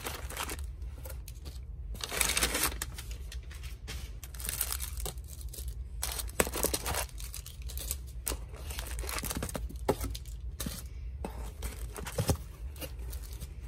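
Plastic-wrapped stationery packs and kraft packing paper rustling and crinkling in irregular bursts as hands move items around in a cardboard box, over the steady low hum of an air conditioner.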